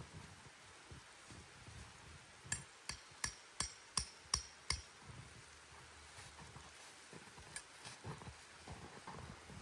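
A quick run of about seven sharp striking blows with a slight ring, about three a second, a few seconds in, among fainter scattered knocks.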